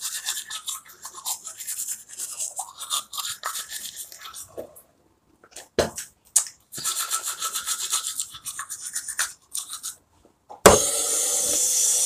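Manual toothbrush scrubbing teeth in quick back-and-forth strokes, in two spells with a short pause between. Near the end a tap is turned on and water runs with a steady rush, louder than the brushing.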